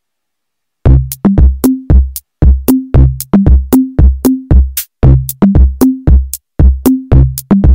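Electronic intro music with a quick drum-machine beat: punchy kick-like hits with short pitched notes, starting about a second in.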